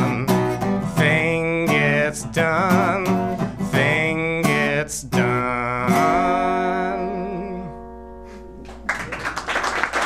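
A male voice singing to his own strummed acoustic guitar, ending the song on a held chord that rings out and fades over about three seconds; audience applause breaks out near the end.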